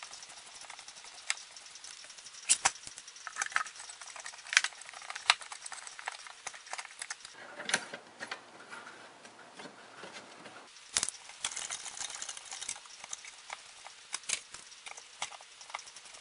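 A hand Phillips screwdriver turns small screws into a plastic car-stereo dash-kit bracket, amid scattered sharp clicks and taps of plastic parts being handled. A scraping rustle comes around eight seconds in, and the loudest knock about eleven seconds in.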